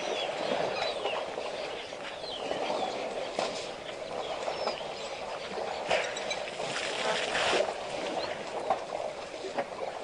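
Waterhole ambience: many birds chirping and chattering without pause, with a few short noisy bursts about six and seven seconds in.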